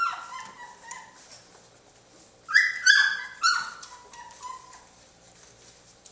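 Three-week-old Jämthund (Swedish Elkhound) puppies crying in short, high-pitched yelps and squeals as they crowd in to nurse. There are a few at first, a loud cluster about two and a half seconds in, and a few fainter cries after that.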